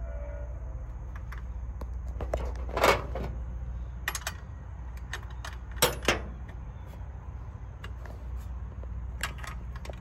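Steel wrenches clinking against a carburetor fitting and against each other: a handful of short, sharp metallic clinks, the loudest about three seconds in and again around six seconds, over a steady low rumble.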